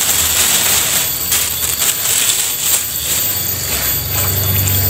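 Tap water running into a steel sink full of cassava leaves, with a hand swishing and rustling the wet leaves as they are washed. A low steady hum joins near the end.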